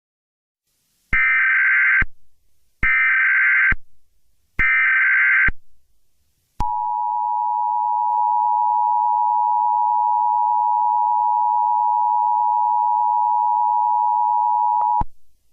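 Emergency Alert System tones: three roughly one-second bursts of SAME header data, then the steady two-note attention signal held for about eight seconds before cutting off, the signal that a new alert message follows.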